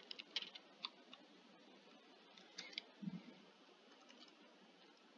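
Faint computer mouse clicks: a few in quick succession in the first second, then a few more about three seconds in, one with a soft low bump.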